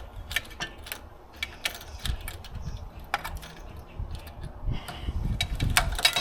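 Irregular clicks and taps of garden hose fittings being handled and fitted together, with a few soft low knocks.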